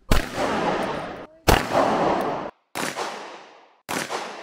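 Pistol firing four single shots about one and a quarter seconds apart, each sharp crack trailing off in echo; the third shot is a little weaker than the others.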